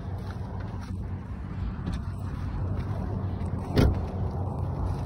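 A vehicle engine idling steadily with a low hum. A single sharp knock comes about four seconds in.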